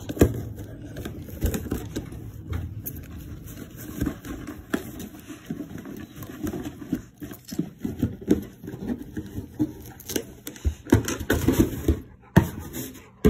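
A Labrador working at a cardboard box with its mouth and nose, tugging at the packing tape: irregular scraping, rustling and tapping on the cardboard.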